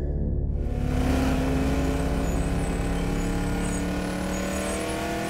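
Car engine running with a rush of road noise that comes in about half a second in; its pitch rises slowly as the car gathers speed.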